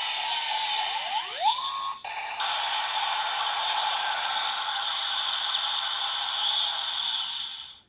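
Electronic sound effects from a DX Kamen Rider Build transformation toy, played through its small built-in speaker: two rising swoops about a second in, a brief break, then a sustained effect that fades out near the end.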